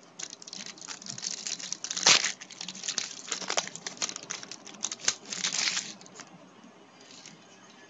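Crinkling and rustling of a baseball card pack's foil wrapper and the cards being handled: a dense run of quick crackles for about six seconds, then quieter.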